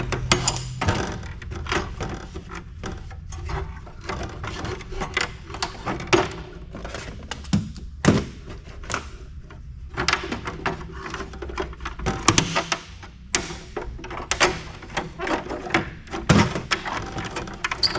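Irregular clicks, clunks and knocks of hand tools and the housing parts of a microfiche reader being handled while it is unscrewed and taken apart.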